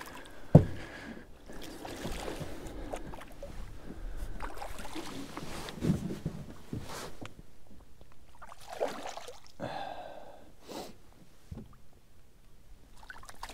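A hooked bass being fought and landed into an aluminum jon boat: a sharp knock about half a second in, then scattered knocks, rustling and water sounds as the fish is brought aboard and handled.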